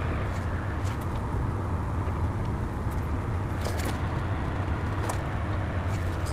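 Steady low mechanical hum of shop background noise, with a few light clicks as a Loctite bottle is handled against the steel axles.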